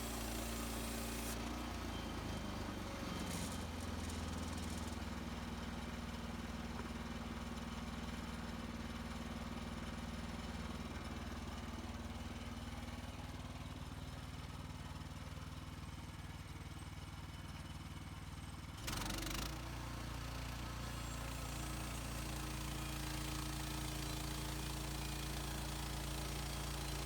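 A sawmill's small engine running steadily. About nineteen seconds in there is a short noisy burst, after which the engine settles at a slightly different steady pitch.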